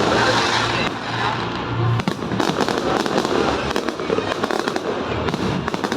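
Aerial fireworks going off in quick succession: a dense run of bangs and crackles with no break.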